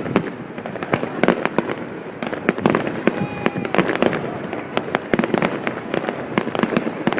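Aerial fireworks display: a dense, rapid run of shell bursts and crackles, many reports a second.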